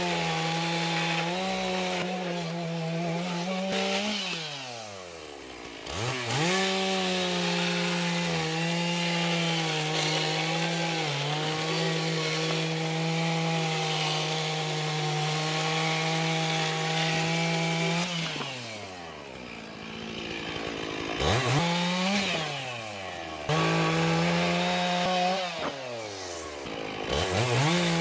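A saw's gas engine cutting wood at full throttle, its pitch dropping toward idle between cuts and rising again several times: one long cut in the middle, then a few short ones near the end.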